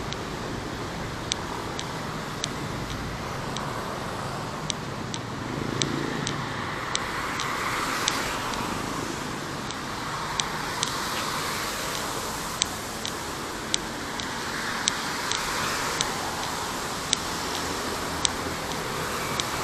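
Steady city street traffic noise, swelling a few times as vehicles pass, with sharp ticks about one or two a second from footsteps on pavement.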